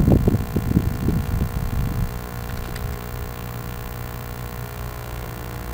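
Wind buffeting the microphone in low gusts that ease off about two seconds in, leaving a steady low hum.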